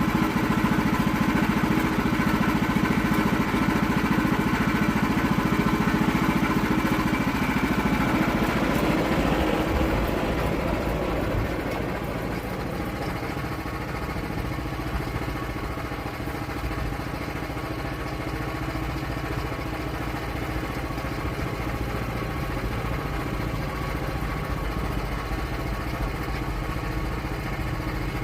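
Portable sawmill's engine running steadily, louder for the first several seconds, then easing off and quieter from about ten seconds in, running on evenly after that.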